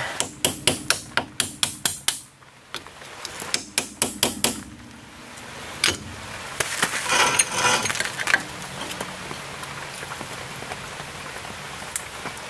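Rapid sharp metallic taps, about five a second, in two runs in the first half, as a hand tool knocks and prys at the grease dust cap on a front wheel hub to work it off. A short scraping rattle about six to eight seconds in.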